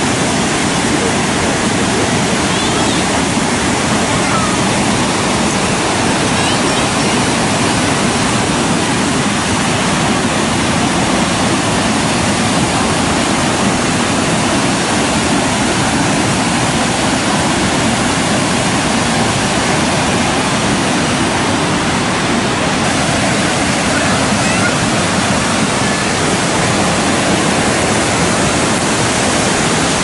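Waterfall pouring down a rock face: a loud, steady rush of falling water.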